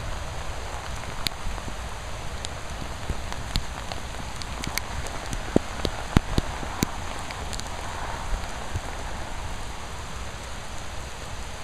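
Steady rain falling, with scattered sharp raindrop taps close to the microphone, about one a second.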